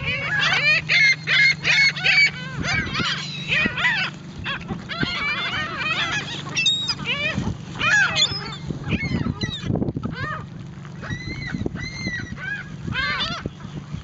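A flock of seagulls calling, many short cries overlapping. After about ten seconds the calls thin out to a few evenly spaced cries.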